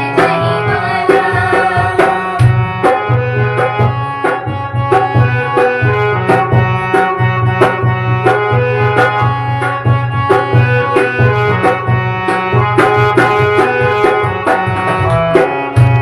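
Instrumental passage of a Hindi devotional bhajan: a tabla-like hand drum keeps a steady rhythm of strokes and deep thumps under a held, many-toned melody line.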